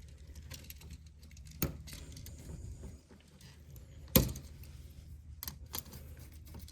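Light metallic clicks and taps from handling a new electrical receptacle, a screwdriver and the bare ground wire while the wire is fitted to the receptacle's ground screw. There is a sharper click under two seconds in and a louder knock about four seconds in.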